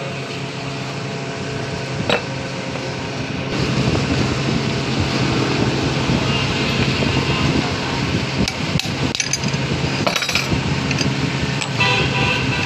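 Metal knocks and clinks from a manual steering box and its parts being worked on in a vise, with a few sharp strikes close together about nine to ten and a half seconds in and again near the end, over a steady low hum.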